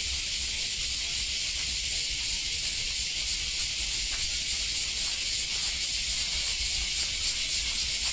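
Steady high hiss of outdoor ambience over a low rumble, pulsing slightly near the end.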